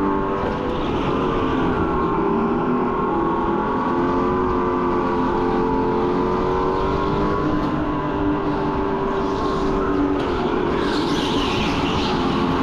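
Go-kart running, its motor giving a steady pitched whine that drifts slowly up and down in pitch. About eleven seconds in, a higher hiss joins it.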